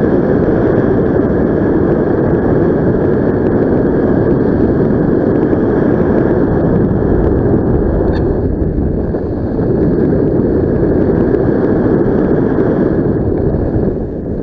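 Wind rushing over the microphone of a camera carried in paraglider flight: a loud, steady, even rush with brief slight dips.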